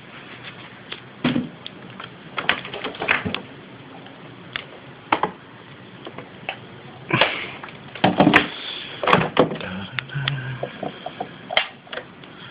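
Handling noise: irregular clicks, knocks and rustles as a handheld camera is moved about.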